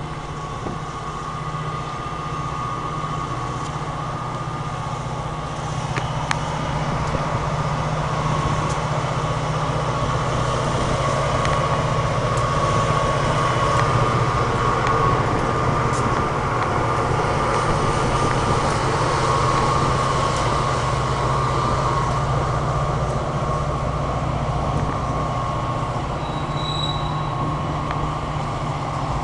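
CSX diesel freight train passing: the locomotives' engines rumble steadily, growing louder over the first several seconds as they draw level, then freight cars roll by. A thin, steady high squeal runs through it.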